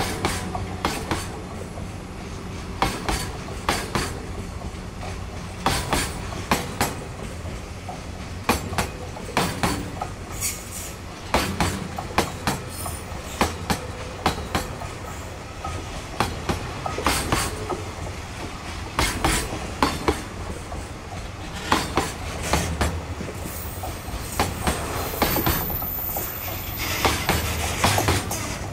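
Freight train's container flat wagons rolling past: a steady low rumble with clickety-clack of the wheel sets over rail joints, the clicks coming in clusters every second or two.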